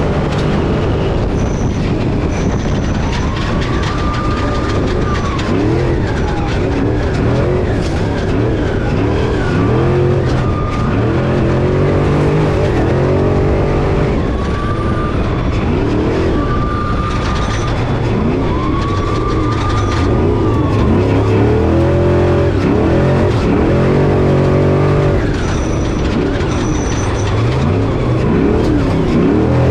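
Off-road race truck's engine at racing load, its revs climbing and dropping again and again as it accelerates and lifts off, heard from inside the cab.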